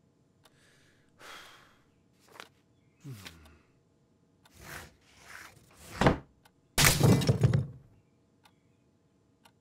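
Cartoon sound effects: a few soft rustles, a short low falling sound about three seconds in, a sharp thump about six seconds in, then the loudest sound, a crash of something breaking that lasts about a second.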